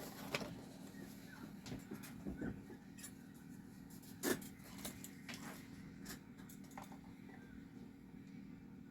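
Faint scattered clicks and light taps from handling the opened drum pad and soldering tools, over a steady low hum; one louder tap about four seconds in.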